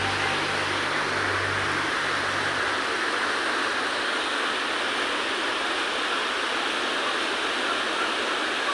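Steady rushing of water flowing in a creek.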